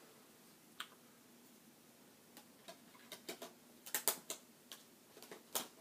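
Hands handling a Blu-ray box set's disc packaging: scattered light clicks and taps, a single one about a second in, then a busier run of clicks over the last three seconds.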